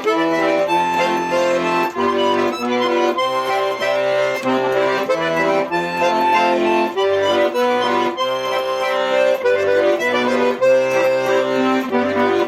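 Instrumental break of a song between sung verses: a melody of held notes over sustained chords and a steady bass line, with no singing.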